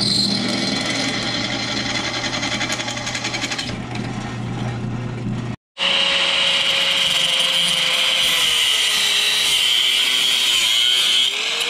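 Small benchtop drill press running with its bit cutting through a steel flat bar: a steady motor hum under rough grinding of the bit. It stops about five and a half seconds in, and an angle grinder cuts into a steel bar with a steady high whine, its pitch sagging a little near the end.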